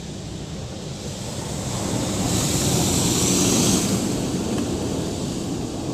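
High-pressure water jets from an automatic car wash's moving arm spraying over the windshield and body, heard from inside the car. The rushing swells to its loudest about halfway through as the spray passes over, then eases off.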